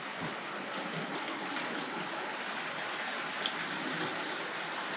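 Tri-ang Hornby M7 tank locomotive model running with its coaches on the track: a steady whirring rattle of the electric motor and metal wheels on the rails, with one faint tick about three and a half seconds in.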